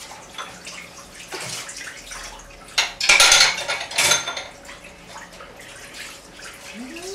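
Washing up at a kitchen sink: a metal spoon clinking against a china bowl and dishes knocking in a plastic basin. About three seconds in, a loud rush of splashing water lasts a second or so.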